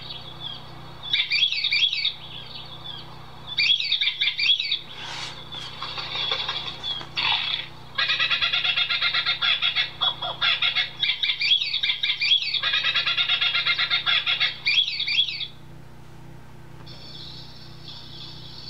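Recorded gibbon calls played through a sound book's small speaker: bouts of high whooping calls that swoop up and down, coming thicker in the middle and stopping a few seconds before the end.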